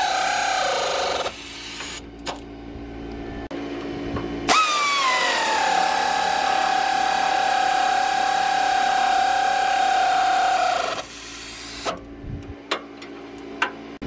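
Cordless power tool running the nuts onto a sway bar quick-disconnect end link, a steady motor whine. The first run winds down and stops about a second in. A second run starts about four and a half seconds in, its pitch starting high and dropping as the nut takes up, then holds steady until it stops about eleven seconds in. A few light clicks follow.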